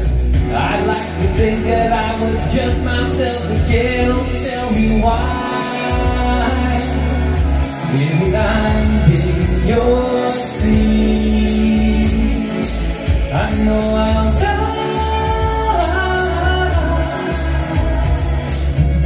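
A man singing live into a microphone over a pop backing track with a steady bass line, holding long notes.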